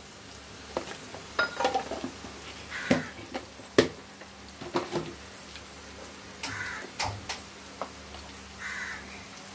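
A spoon clinking and tapping against a non-stick frying pan as chilli powder is added to diced potatoes. Over it, a bird calls a few times in the background.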